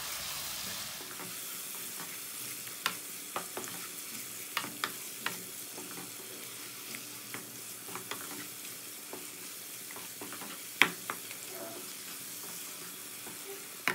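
Beef pieces with tomatoes and spices sizzling in a non-stick karahi while being fried (bhuna) on medium heat, stirred with a wooden spatula. A steady sizzle runs under scattered sharp taps and scrapes of the spatula against the pan, the loudest about eleven seconds in.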